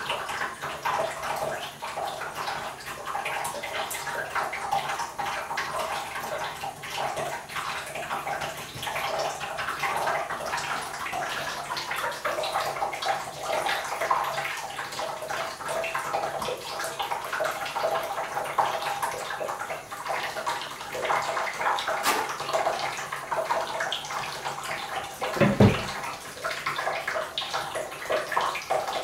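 Water running from the tap into a bathtub as it fills: a steady splashing rush. A single thump about 25 seconds in.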